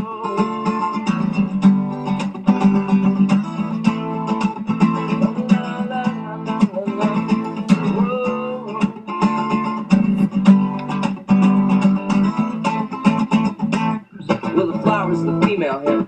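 Music: an instrumental passage led by acoustic guitar, plucked and strummed, with a brief drop-out near the end.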